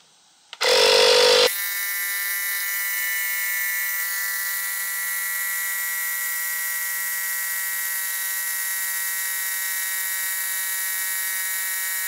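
Kobalt 24V cordless tire inflator's compressor starting about half a second in, louder for its first second, then running steadily with an even whine as it pumps a water heater expansion tank's air charge up from about 38 toward its 58 PSI target.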